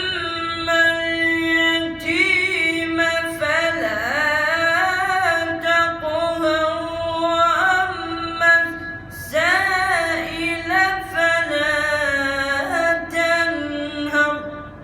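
Melodic Quran recitation in tajweed style: a single unaccompanied voice sings long, high held notes with ornamented turns in pitch, pausing briefly about nine seconds in.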